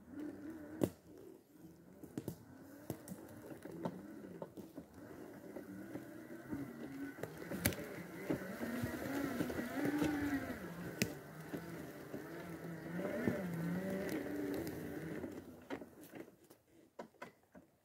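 Electric drive motors of an Extreme X8 power wheelchair whining as it drives over rough forest ground, the pitch rising and falling in slow swells with speed and load, loudest through the middle. A few sharp clicks or knocks sound over it.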